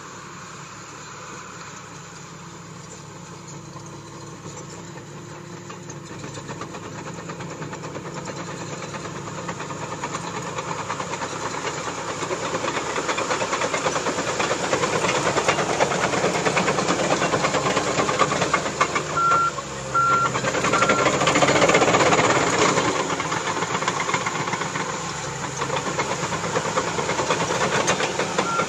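Cat D4H crawler dozer's diesel engine running and its tracks clattering as it moves, growing louder over the first half. Its backup alarm beeps three times about two-thirds of the way in.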